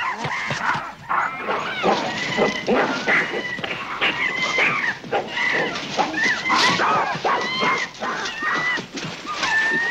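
A group of chimpanzees screaming and calling over one another in many rising and falling high calls. These are excited threat and alarm calls at a predator, a mechanical model leopard they are attacking.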